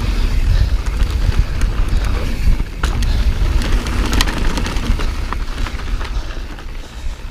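Transition Patrol Carbon mountain bike ridden fast down a dusty, loose dirt trail: tyres rolling over the dirt with a heavy wind rumble on the chest-mounted microphone, and sharp clicks and knocks from the bike over bumps, a few of them standing out about three, four and five seconds in.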